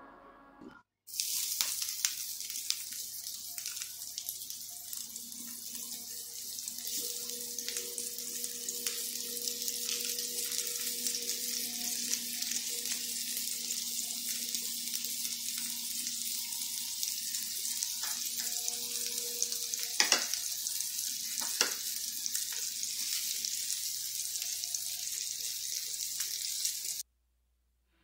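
Fish slices frying in hot oil on a tawa: a steady high sizzle with scattered spits and crackles, a few sharper pops about twenty seconds in. It starts about a second in and cuts off abruptly shortly before the end.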